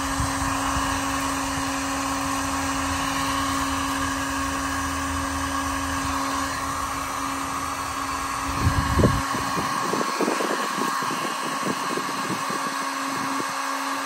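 Heat gun blowing steadily, its fan motor giving a constant hum and whine. From about nine seconds in, irregular crinkling and crackling as the heat-softened adhesive label is peeled off the metal drawer.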